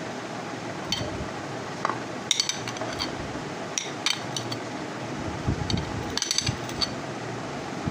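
Steel spoon clinking and scraping against a glass bowl while chopped onion is scraped out, in several small clusters of light ringing chinks over a steady background hum.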